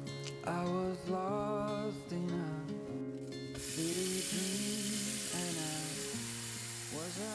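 Tap water runs steadily into a saucepan, coming in as a hiss about halfway through, over gentle background music with a wavering melody.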